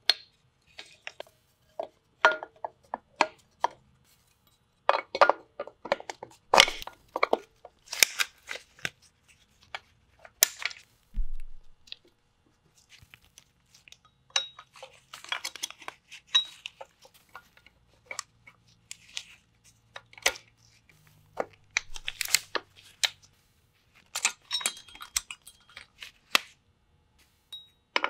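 Steel drum-brake shoes, return and hold-down springs and adjuster hardware clicking, clinking and scraping against a rear axle's brake backing plate as they are fitted by hand, in irregular clusters of sharp metallic ticks.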